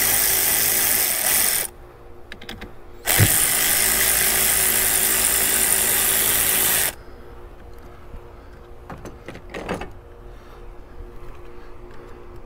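Power ratchet spinning nuts off a truck's battery junction block, in two runs: the first stops about two seconds in, the second starts about a second later and runs for about four seconds. It is followed by a quieter stretch with a few light clicks.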